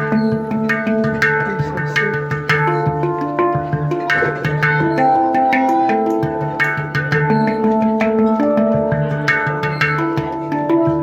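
Background music: sustained pitched notes with plucked or struck attacks at a steady beat.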